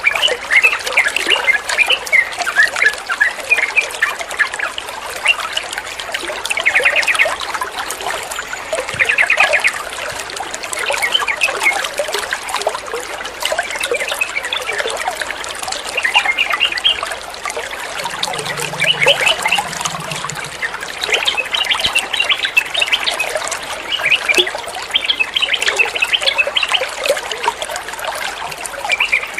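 Water trickling steadily, with a yellow-vented bulbul (trucukan) calling over it again and again in short runs of quick chirps.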